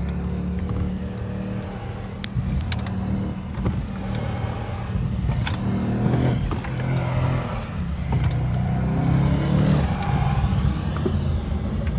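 2014 Audi RS7's twin-turbo V8, heard from inside the cabin, pulling and easing off as the car is driven at speed, its pitch rising and falling with the throttle. A few sharp clicks cut through it.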